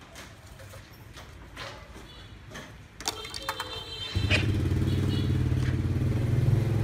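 A few light clicks and knocks, then about four seconds in a Classic CLA-5426 1010 W SDS rotary hammer drill starts and runs steadily with a loud low motor drone.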